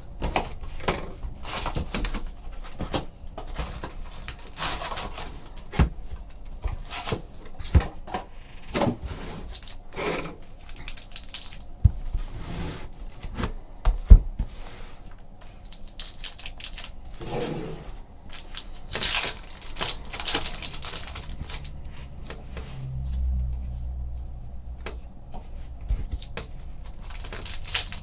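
Trading-card box and packs being opened and handled: scattered knocks and taps of cardboard on a table, with rustling and tearing of foil pack wrappers, the rustling strongest about two-thirds of the way through.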